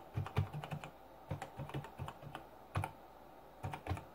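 Typing on a Tandy TRS-80 Model 100 portable computer's keyboard: quick, irregular runs of key clicks broken by short pauses about a second in and again near three seconds.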